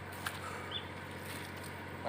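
Steady outdoor background with one short high chirp, like a small bird's call, and a single sharp click about a quarter second in.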